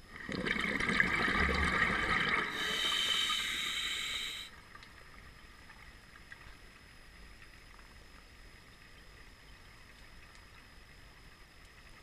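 Scuba diver's breath through a regulator: a loud bubbling rush for about two seconds, then a higher hiss for about two more, stopping about four and a half seconds in. After that only a faint steady underwater background.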